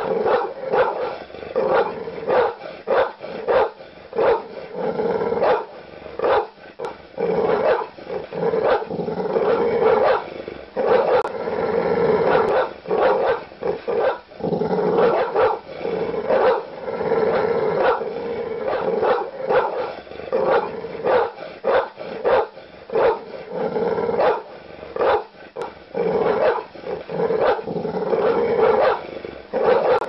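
An angry dog barking in rapid, irregular volleys, with growling between the barks.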